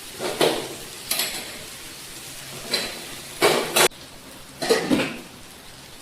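A utensil scraping and clattering against a cooking pan in five short strokes, the longest about half a second and cutting off sharply, over a faint steady sizzle of food frying.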